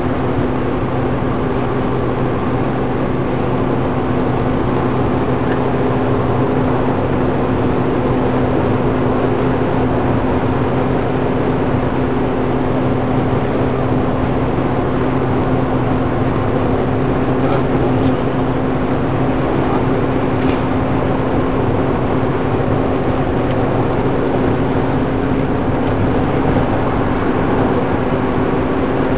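Car cruising at highway speed, heard from inside the cabin: a steady drone of engine and tyre noise with a constant low hum that never changes.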